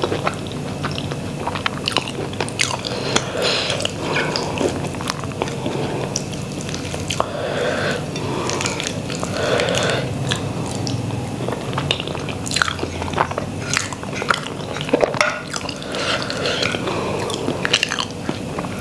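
A person chewing mouthfuls of rice and curry eaten by hand, close to the microphone, with many short wet smacking clicks and an occasional crunch.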